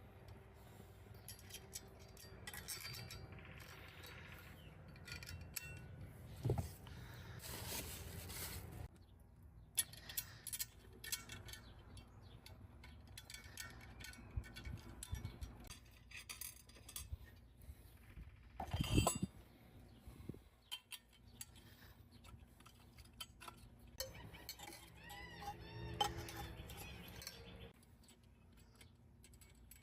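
Metal parts of a manual lawn core aerator clinking and knocking as it is handled and put together, with a louder knock a little past halfway.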